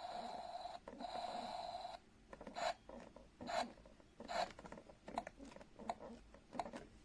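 Two short electronic buzzes from a small toy speaker in the first two seconds, then a series of sharp clicks and taps like hard plastic being handled.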